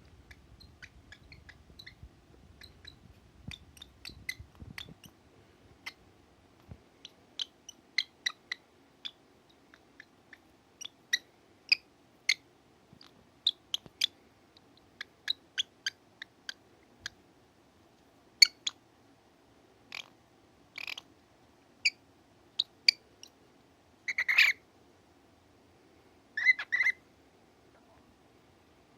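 A drowsy cockatiel making many short, soft chirps and clicks at an irregular pace, with a longer chirp about two-thirds of the way through and a two-note call soon after.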